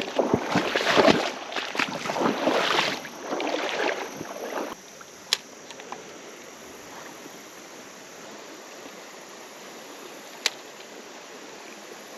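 Creek water: loud, uneven splashing and rushing for the first few seconds, then cutting suddenly to a steady flowing stream, with two sharp clicks a few seconds apart.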